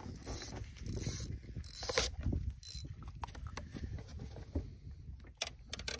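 Handling noises around a landing net holding a freshly caught bass on a boat deck: irregular clicks, scrapes and rustles, with a low rumble underneath.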